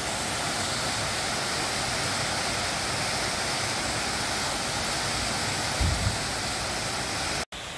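Small waterfall pouring down a rock face into a shallow pool, a steady rushing splash. A brief low thump comes about six seconds in, and the sound cuts off suddenly near the end.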